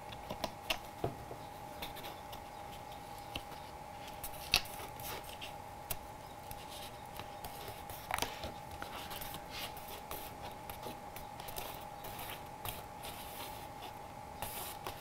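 Cardstock being handled, folded and pressed by hand on a wooden table: scattered light taps, scratches and paper rustles, with a faint steady hum underneath.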